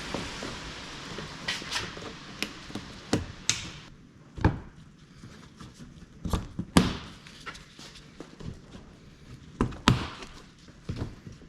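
Metal tools and suspension parts being handled, giving scattered sharp knocks and clinks at irregular intervals. A hiss fades out over the first few seconds.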